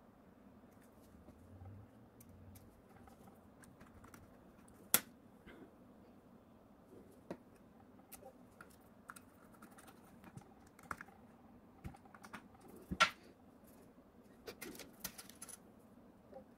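Scattered small clicks and taps of screws, a threadlocker bottle and a hex key being handled against the metal housing of a 3D-printer module, with two sharper clicks about five seconds in and about thirteen seconds in.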